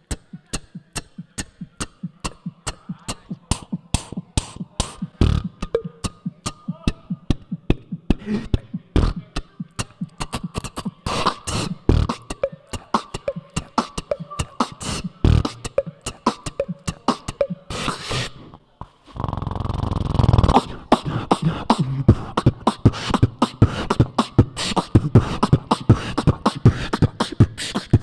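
Solo beatboxing into a handheld microphone: a fast, steady run of vocal kick, snare and hi-hat strokes, several a second. About two-thirds of the way through it stops for a moment, gives way to a held low bass sound lasting over a second, and then the beat resumes.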